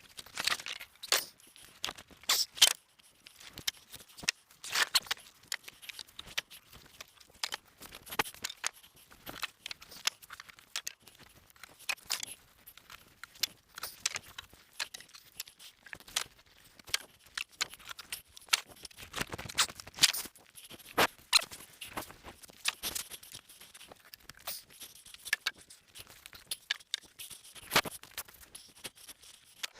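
Irregular clatter of short knocks and clicks, scattered unevenly and without any running engine.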